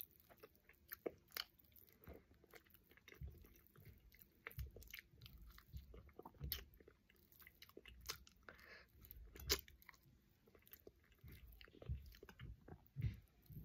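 Faint chewing and biting as chicken wings are eaten quickly off the bone by hand, with many irregular soft clicks and low thumps.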